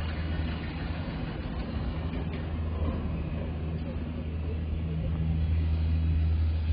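Steady low machinery hum, with faint voices of people in the background.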